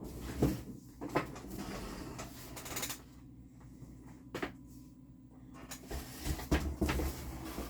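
Scattered clicks and knocks of items being handled and set down, with a cluster of heavier thumps about six seconds in.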